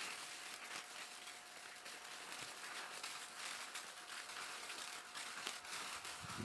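Black Cat Wild Blue Yonder 200 g firework fountain spraying sparks: a steady hiss with faint crackling.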